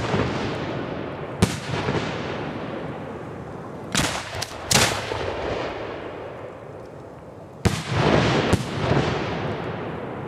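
6-inch professional display firework shells firing from mortars and bursting: about six sharp booms spaced unevenly over several seconds, each followed by a long rolling echo.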